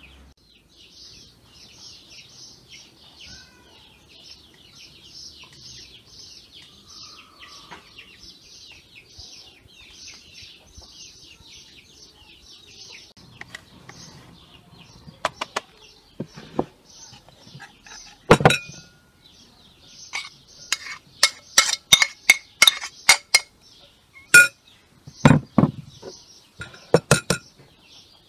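Frozen white cheese grated on a metal box grater: a faint, steady, fine rasping. About halfway through this gives way to a run of sharp clinks and knocks of metal and utensils against china, briefly ringing, with a duller knock near the end.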